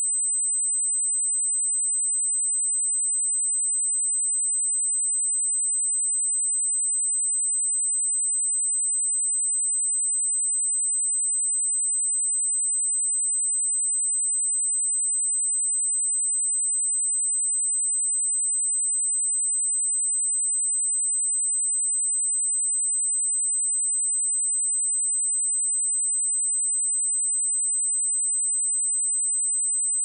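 Steady pure sine-wave test tone at 8105 Hz, a single high-pitched tone held at constant level.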